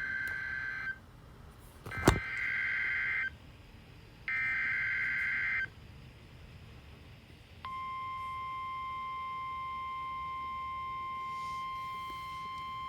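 NOAA Weather Radio Emergency Alert System signal: three screeching bursts of the coded SAME digital header, with a sharp click about two seconds in. After a short gap comes the steady single-pitch 1050 Hz warning alarm tone, which holds. Together these open a new warning broadcast.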